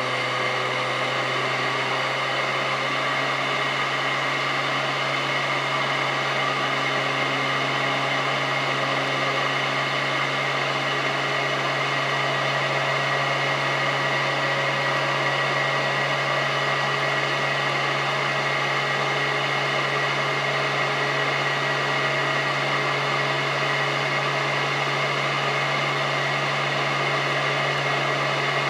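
Royal Metal 8200 all-metal upright vacuum cleaner's motor and fan running steadily at full speed with a constant high tone, its lower hum settling in the first few seconds after switch-on.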